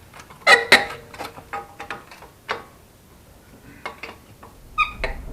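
Metal tools or parts clinking and clattering: a series of sharp clinks, the loudest about half a second in, and a short ringing metallic clink near the end.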